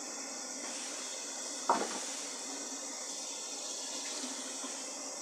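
Kitchen tap running water into the sink, a steady hiss, with one sharp knock under two seconds in.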